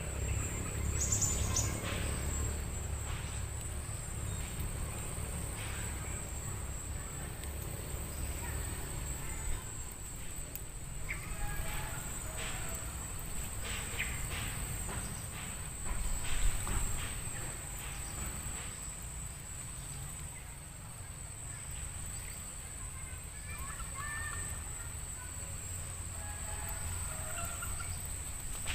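Outdoor ambience: a steady, high-pitched insect drone with scattered short bird chirps over a low rumble.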